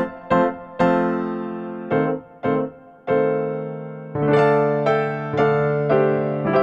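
Background piano music: chords struck one after another, each left to ring and fade.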